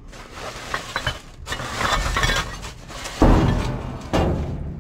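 Hands rummaging through trash in a dumpster: plastic bags and styrofoam packing crinkling and rustling, with a loud thump about three seconds in.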